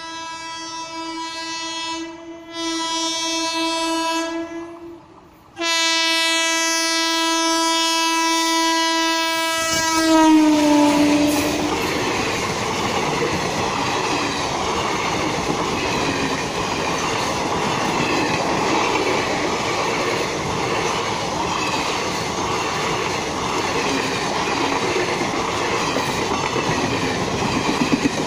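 Indian Railways train horn sounded in three blasts, two short and one long, the long blast dropping in pitch as the locomotive passes. The train then runs past close by in a steady rush of wheel and rail noise.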